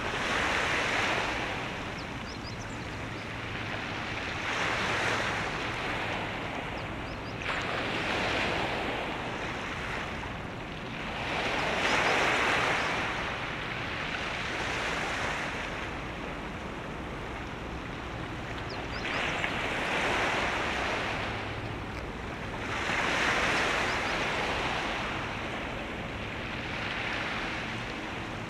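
Waves washing in, swelling and falling about every three to four seconds, over a faint low steady hum.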